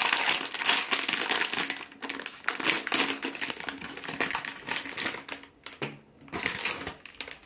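Foil blind-box bag being handled, torn open and crinkled by hand: a dense crackly rustle that comes in three stretches with short pauses between.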